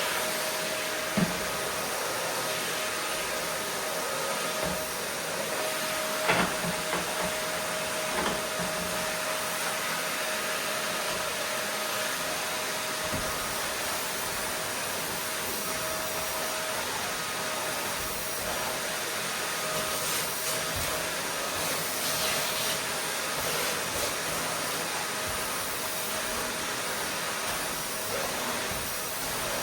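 Vacuum cleaner running steadily: an even rushing hiss with a faint constant whine in it. Two brief knocks come through, about a second in and again about six seconds in.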